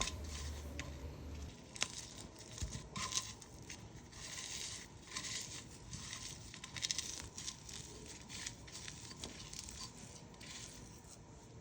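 Hands mixing a chopped vegetable salad (Manipuri singju): quiet, irregular rustling and crinkling with soft crunches.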